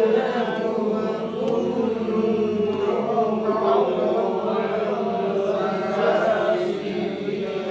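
Quranic verses recited in a slow, drawn-out chant, the vowels and nasal sounds held long and gliding in pitch with hardly a break.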